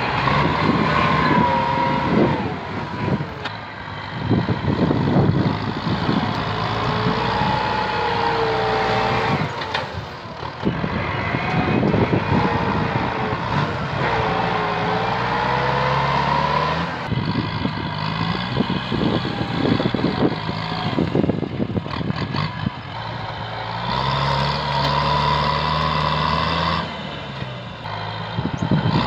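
Kubota farm tractor's diesel engine running under load while pushing a pile of uprooted brush and roots. A high whine wavers up and down in pitch over the engine, and branches crackle and snap as the brush is shoved along.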